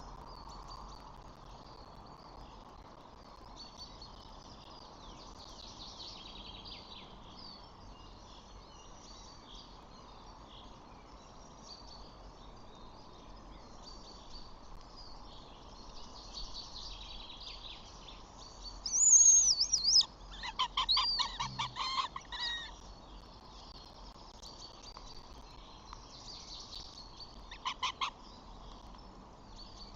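Outdoor chorus of small songbirds chirping, with a louder bird call about two-thirds of the way in: a high whistled glide, then a rapid chattering series of notes, and a short burst of the same chatter near the end.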